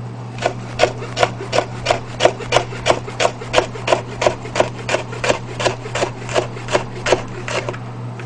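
Chef's knife slicing green bell pepper on a cutting board: steady, even strokes about three a second, each a sharp tap of the blade on the board.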